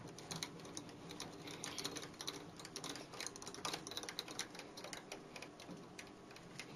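Quick, irregular light clicks and rattles of metal parts being handled as the lathe's carriage with its toolholder is moved up beside the rotary table, over a faint low hum.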